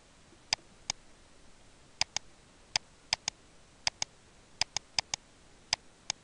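Computer mouse button clicking, about fifteen sharp clicks at an uneven pace, many in quick pairs, over a faint hiss.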